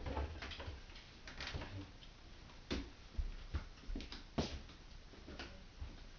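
Light knocks and clicks of plates being lifted off a wooden table, with the dull thuds of a chair and people moving. The knocks come irregularly, about eight in all.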